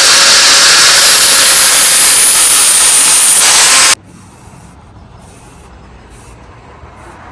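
Power grinding or sanding tool working a steel knife blade, a loud steady hiss with a faint high whine, which cuts off suddenly about four seconds in. Afterwards come a few short, quiet rasping strokes.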